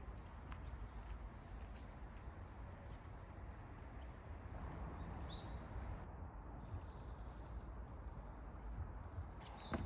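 Insects chirping steadily in high, even tones, faint against quiet ambient background.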